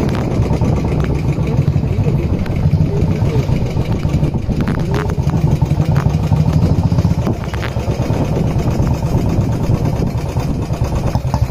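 Royal Enfield Bullet single-cylinder motorcycle engines running steadily as the bikes ride along, a continuous low engine rumble.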